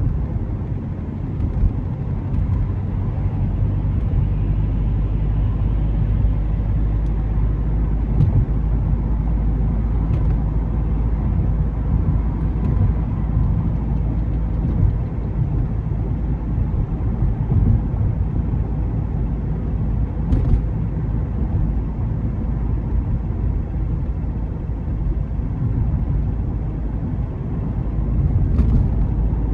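Steady low rumble of a car driving along the road, engine and tyre noise, with a couple of faint clicks.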